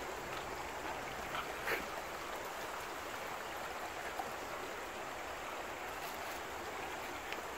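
Shallow rocky creek flowing over stones, a steady, even rush of water, with a couple of light knocks about a second and a half in.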